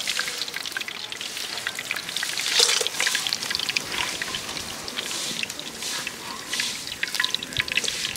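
Fish frying in hot oil: a steady sizzling hiss full of small pops and crackles, with a louder burst of crackling about two and a half seconds in.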